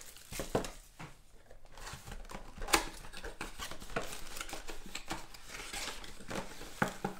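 Cardboard trading-card mega box being handled and opened: light rustling and scattered clicks of cardboard as the top flap is pulled open, with one sharper click a little under three seconds in.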